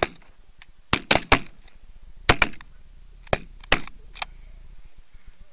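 A camouflaged shotgun being reloaded: about eight sharp metallic clicks and knocks, some in quick pairs, over about three seconds.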